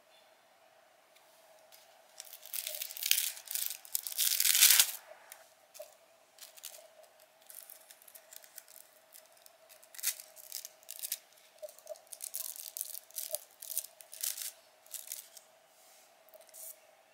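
Close-up tearing and crinkling in irregular bursts, with the loudest tearing about four to five seconds in, from hands preparing cannabis to smoke.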